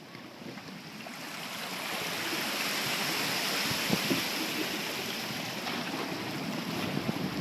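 Seawater surging and foaming through a narrow rock channel around a kayak, building over the first two seconds and then rushing steadily. Two short knocks sound about four seconds in.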